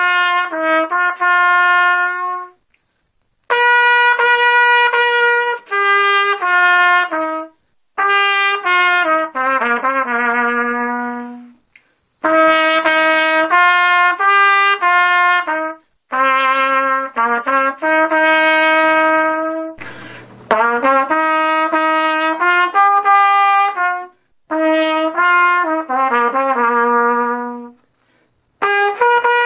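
Unaccompanied solo trumpet playing a slow melody in phrases a few seconds long, separated by short breath pauses, with vibrato on the longer held notes.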